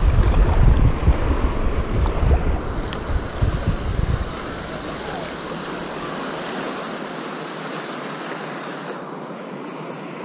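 Wind buffeting the microphone over the wash of small waves in shallow water. About four seconds in the wind rumble drops away, leaving the steady wash and lapping of the water.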